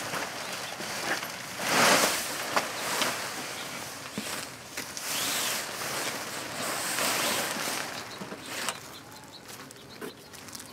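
Nylon tent rain fly rustling as it is pulled and shifted over the tent frame, in several swells, the loudest about two seconds in, with a few light knocks and clicks; it settles down near the end as the strap is fastened.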